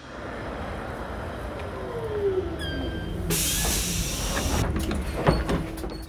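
Cartoon train sound effect: a locomotive rumbling along the rails, with a burst of hissing about three seconds in and a sharp knock near the end.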